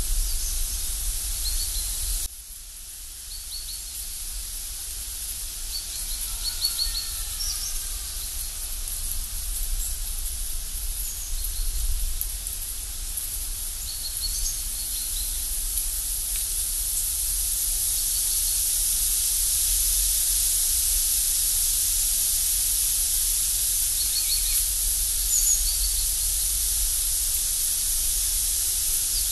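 Outdoor woodland ambience: a steady high hiss that drops abruptly about two seconds in and grows again in the second half, with a low wind rumble and short bird chirps in small groups now and then.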